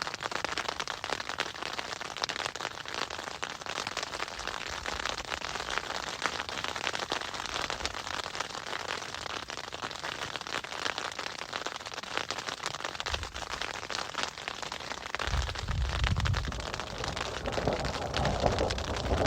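Hail pelting down, a dense patter of countless small impacts. A low rumble joins in about two-thirds of the way through.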